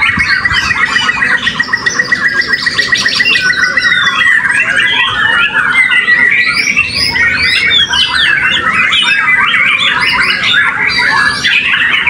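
Several caged white-rumped shamas singing at once: loud overlapping whistled phrases and chatter, with a fast repeated trill over the first four seconds.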